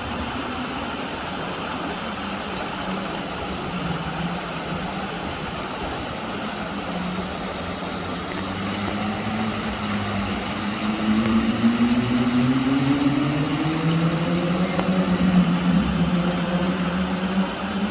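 Road traffic noise with a motor vehicle's engine running. About halfway through, an engine note rises in pitch and grows louder as a vehicle passes close by.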